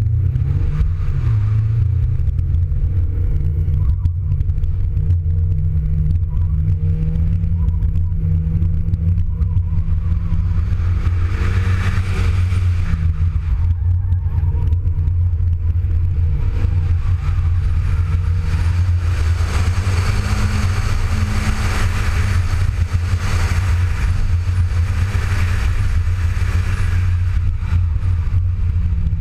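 Audi TT 225's turbocharged 1.8-litre four-cylinder engine running hard through an autocross course, its pitch rising and falling with the throttle. A broad hiss of tyre and wind noise swells over it twice, briefly around the middle and for a longer stretch in the second half.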